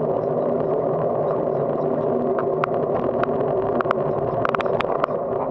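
Bicycle riding on a paved road, heard from a handlebar-mounted camera: a steady rushing drone of wind and tyre noise, with a scatter of light clicks and rattles in the second half, thickest near the end.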